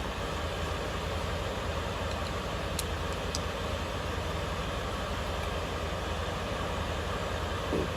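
Steady mechanical background hum, with two or three faint light clicks about three seconds in.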